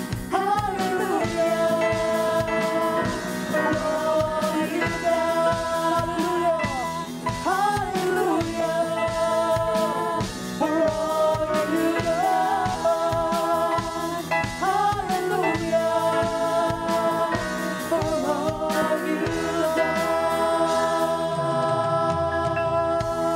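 Live worship band playing a gospel song: a woman singing a high lead line over electric guitar, bass and keyboard with a steady beat. About nineteen seconds in the beat drops out, leaving held singing over sustained keyboard chords.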